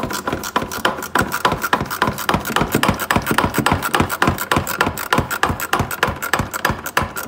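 Hand ratchet and socket clicking fast and steadily as it turns out a bolt.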